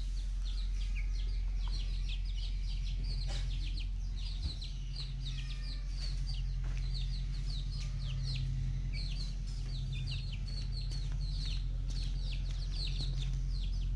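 A group of young chickens peeping, many short high peeps a few times a second, over a steady low hum.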